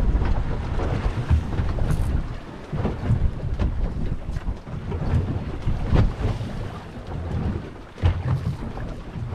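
Wind buffeting the microphone in uneven gusts, a heavy low rumble, with water slapping against the side of a small boat.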